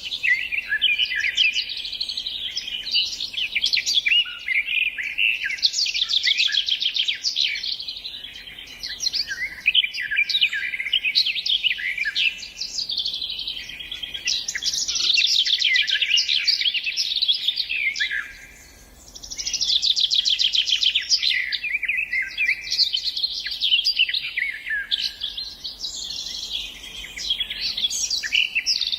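Songbirds singing: a dense, continuous run of fast trills and chirps, with a brief lull about two-thirds of the way through.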